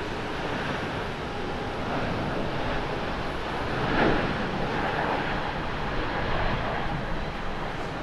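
Airbus A350-900 jet engines (Rolls-Royce Trent XWB) running at takeoff thrust as the airliner rolls, rotates and lifts off. The steady jet noise swells to its loudest about halfway through.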